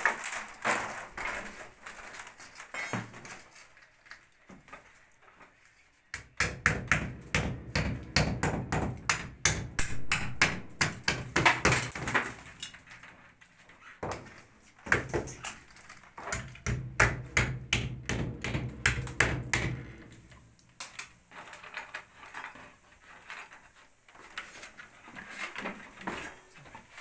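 Rapid, dense knocking and tapping of work on a brick wall as PVC electrical conduit is fitted and fixed into a wall chase, starting about six seconds in and thinning out to scattered knocks after about twenty seconds.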